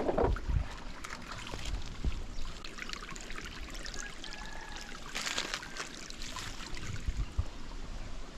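Water trickling in a small stream, a steady running sound broken by scattered small clicks and knocks.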